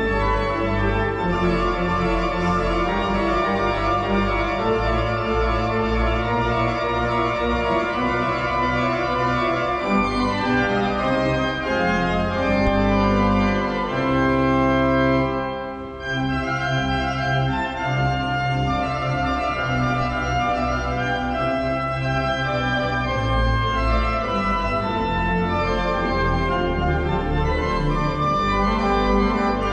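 Organ music playing slow, sustained chords, with a brief dip in loudness about halfway through.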